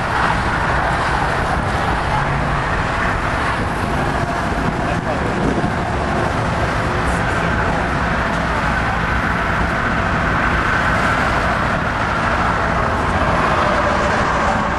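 Steady background noise of truck and vehicle engines running, mixed with the indistinct chatter of a crowd.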